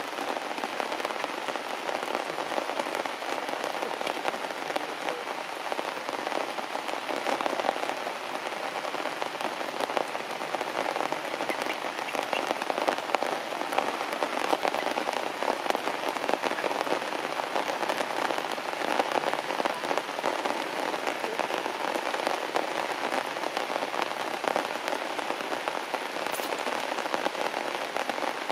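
Heavy rain falling steadily on grass and leaves, a dense, even patter of drops.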